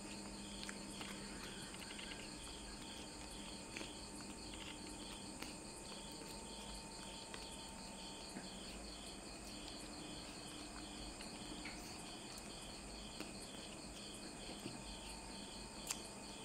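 Faint cricket chirping, a regular high pulsing about two chirps a second, with a few faint clicks.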